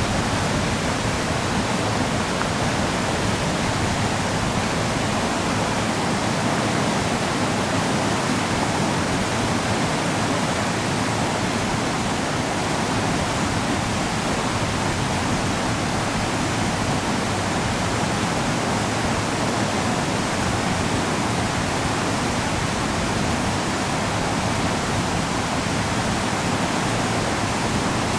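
Swollen, flood-level river rushing in a steady, loud roar after days of typhoon rain.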